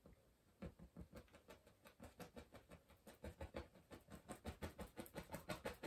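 Paintbrush dabbing and stroking oil paint onto a canvas in short, faint strokes, about five a second, growing louder and quicker toward the end.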